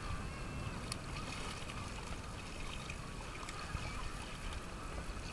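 Shallow seawater washing and sloshing around legs wading through it, with wind noise on the microphone and faint distant voices.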